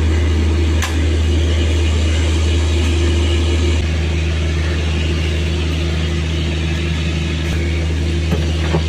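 Steady, loud, low mechanical hum from the standing passenger train's machinery, with a steady droning tone. A second, lower tone joins about four seconds in.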